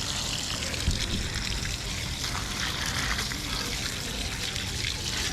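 Water running steadily, pouring into a container of live crawfish as it fills.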